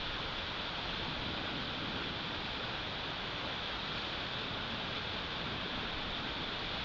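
Steady, even hiss of wind and snowstorm noise picked up by an outdoor nest camera's microphone, with no calls or separate sounds.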